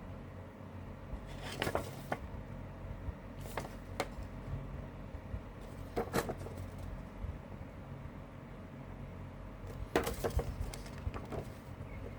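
A CD case and its contents being handled: scattered short clicks and light knocks of plastic and paper, in groups about a second and a half in, around four and six seconds, and a busier run about ten seconds in, over a low steady hum.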